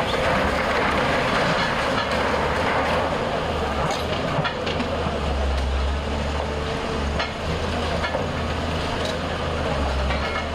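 Diesel engine of heavy earth-moving machinery running at a demolition site, a steady low rumble under a noisy clatter, with a few sharp knocks.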